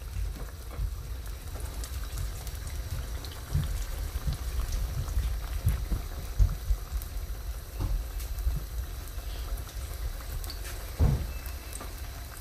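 Tomato and onion sauce bubbling and spitting as it fries in a stainless frying pan, with a few dull thumps, the strongest about eleven seconds in.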